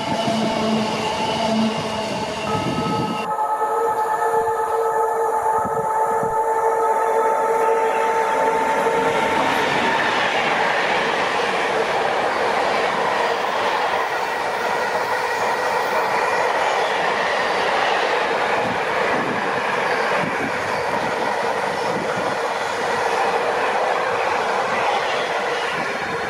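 Train passing close by on the main line. For the first nine seconds or so a steady pitched drone sounds over the running noise. After that, the rumble and clatter of wheels on the rails carries on to the end.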